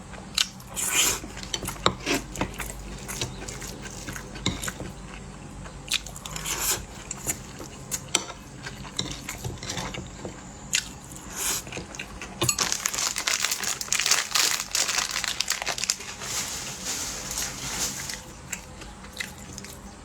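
Close-miked eating: crunchy bites and chewing in scattered sharp crackles, with a dense run of crackling and crinkling about two-thirds of the way through.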